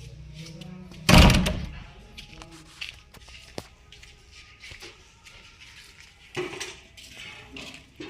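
A loud thump about a second in, ringing briefly, followed by a few light knocks and clicks.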